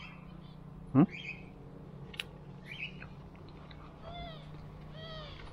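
A cat meowing twice near the end, short calls that rise and fall in pitch. A single brief sound sweeping sharply upward in pitch about a second in.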